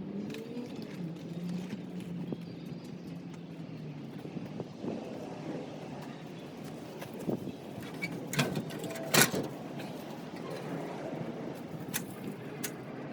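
A low engine hum, like a car running or passing, for the first few seconds, then scattered sharp knocks and clicks, the loudest two about eight and a half and nine seconds in.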